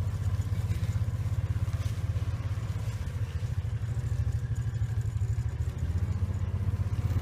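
Vehicle engine running steadily at low revs, a dense low pulsing drone.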